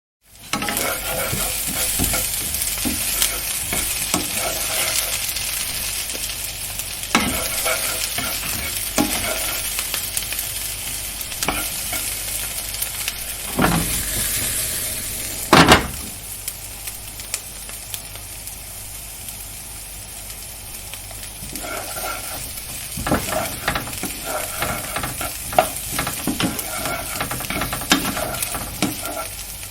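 Fish frying in hot oil in a pan, sizzling steadily, louder in the first half. A utensil knocks against the pan now and then, loudest once just past the middle.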